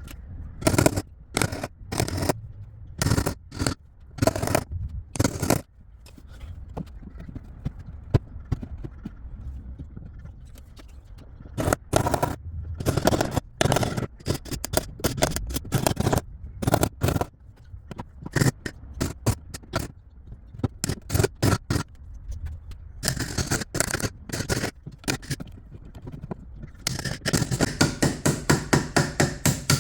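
Wood chisel cutting a recess in a drawer for a lock: irregular sharp strikes and scraping of the chisel in the wood, then near the end a quick run of even taps, about four or five a second.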